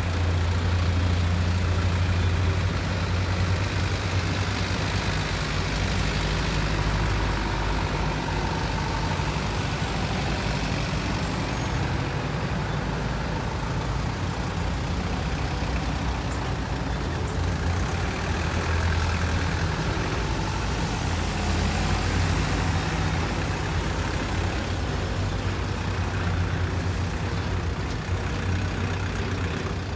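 Engines of a slow line of trucks driving past, a steady low drone that swells as each truck goes by, loudest near the start and again around two-thirds of the way through.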